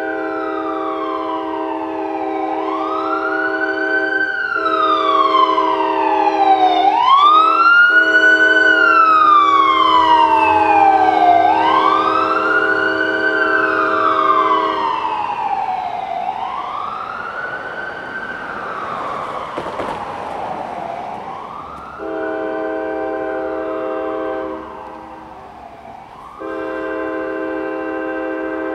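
An ambulance siren on wail, rising and falling about every four seconds, growing louder and then fading after about fifteen seconds. Under it, a Norfolk Southern freight locomotive's multi-chime air horn sounds for the street crossings: a long blast that stops about halfway through, a short blast a little later, and another long blast beginning near the end.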